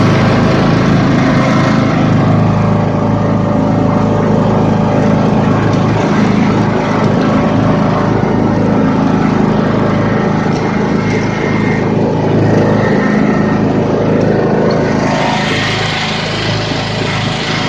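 Riding lawn mower's small engine running steadily and loudly while the mower is driven, close to the microphone.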